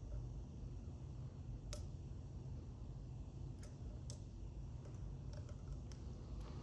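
Lock pick working the wafers of an Illinois Duo wafer padlock: a handful of scattered faint metallic ticks and clicks over a steady low hum.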